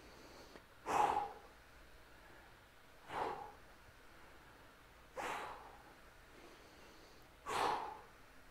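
A man exhaling sharply four times, about every two seconds, in rhythm with the reps of a single-arm resistance-band fly.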